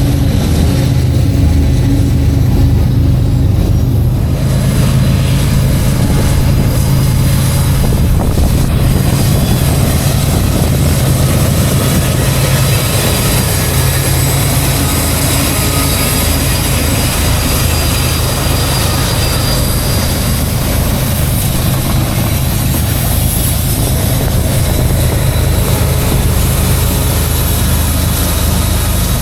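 Diesel-electric freight locomotives passing with a steady low engine drone, joined about four seconds in by the rolling noise of the train's wheels on the rails.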